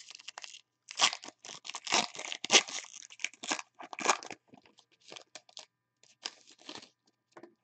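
A football trading-card pack being torn open by hand: a dense run of sharp, irregular crinkling and ripping of the wrapper, loudest in the first half, then sparser, fainter crackles as the cards are drawn out.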